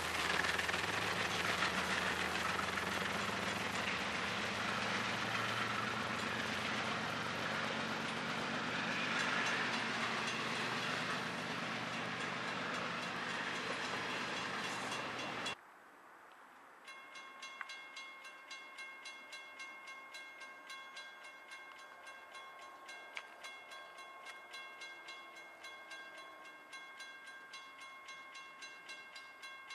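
Intermodal freight train's container well cars rolling past, a steady loud noise of wheels on rail that cuts off suddenly about halfway through. Then a railroad crossing bell rings in a fast, even rhythm.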